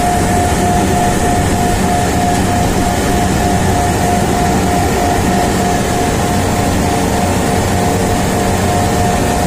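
Steady, loud drone of running chiller-plant machinery, with a constant mid-pitched whine over a low hum that holds unchanged throughout.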